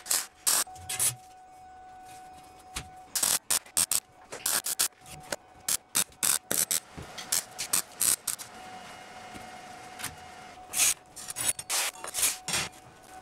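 Workshop metalworking on a steel shell: an irregular run of sharp scrapes and knocks, with a faint steady hum underneath.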